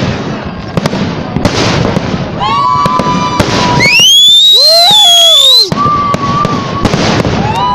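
Fireworks display: dense crackling and bangs, then whistling fireworks. About four seconds in, one very loud rising whistle drowns everything else and cuts off sharply under two seconds later, followed by more whistles and bangs.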